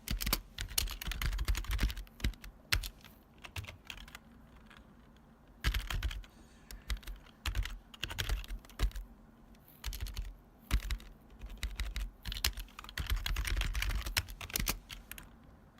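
Typing on a retro long-travel keyboard, its keys clacking loudly in quick irregular runs, with a short pause about a third of the way in.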